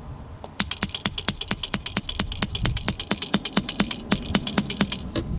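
Electric hammer (breaker) attachment on a radio-controlled model excavator hammering, a fast even rattle of sharp taps at about six to seven a second that starts just after the beginning and stops about a second before the end.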